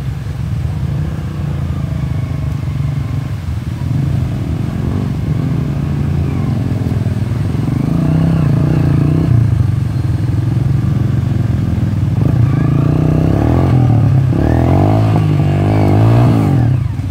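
Dirt bike engine running close by and revving as it labours up a muddy bank, the revs rising and falling repeatedly in the last few seconds.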